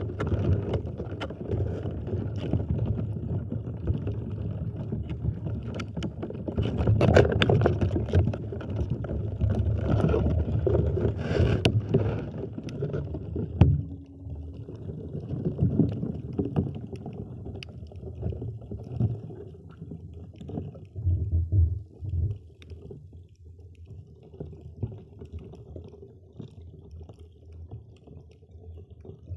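Muffled rumble and sloshing of water around a camera held under the water, with a few sharp knocks; it gets quieter about halfway through.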